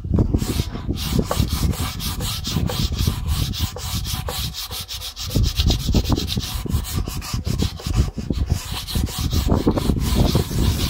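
Sandpaper rubbed by hand along the edge of an English elm table top in quick, evenly repeated back-and-forth strokes.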